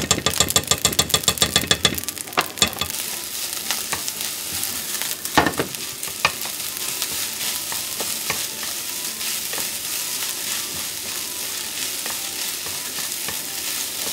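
Fried rice sizzling in a frying pan while a wooden spatula stirs and scrapes it. For about the first two seconds the spatula taps the pan rapidly and evenly. After that there is a steady sizzle with occasional knocks of the spatula against the pan.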